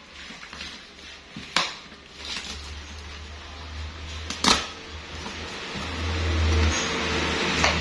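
Cardboard carton being opened by hand: two sharp snaps about three seconds apart, then the flaps rustling and scraping louder as they are pulled apart, over a low rumble.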